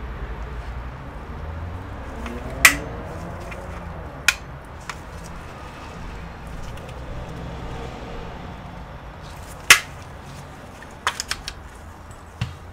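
Plastic snap-fit clips of an ARRIS SB8200 cable modem's case cracking free as the shell is pried apart by hand: a few sharp snaps, the loudest about three seconds in and near ten seconds in, then a quick run of smaller clicks near the end. The clips come free without breaking.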